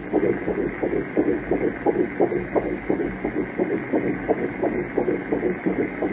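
Fetal heartbeat as heard on a Doppler or ultrasound monitor: fast, even pulses, about three a second, the rapid rate of a baby's heart in the womb.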